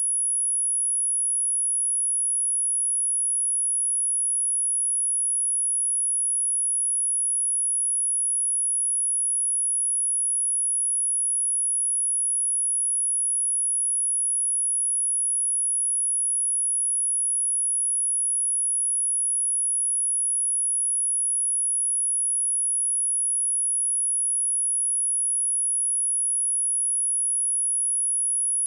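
A pure sine-wave test tone at 10291 Hz, a single high-pitched whistle held at one steady pitch and level, with nothing else under it.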